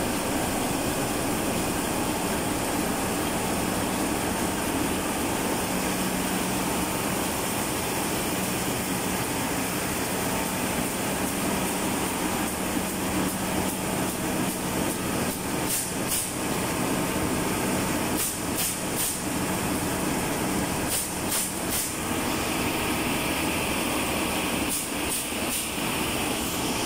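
Zichai in-line marine diesel engine running steadily, a loud, even mechanical din filling the engine room. From about halfway through, short high hissing bursts come in quick groups of two or three over it.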